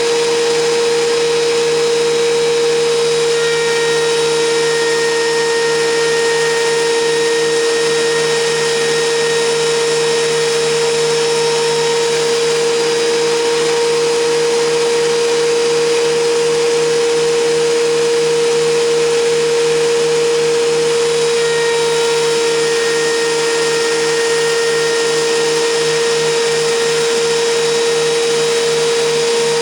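WEN 13-inch thickness planer (model 6552T) running, its motor giving a loud, steady whine that holds an even pitch throughout.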